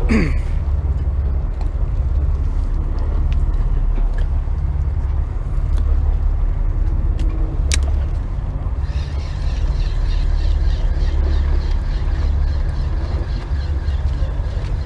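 Charter boat's engine running with a steady low rumble. There is a sharp click a little before the eight-second mark, and from about nine seconds in a faint, fast ticking joins it.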